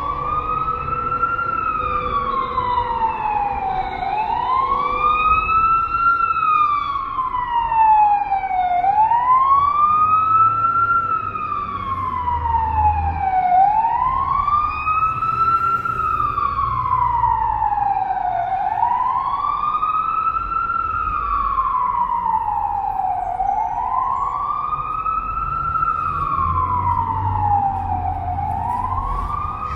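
Emergency vehicle siren sounding a slow wail: the pitch rises quickly and then slides down slowly, repeating about every four to five seconds, over a low rumble of street traffic.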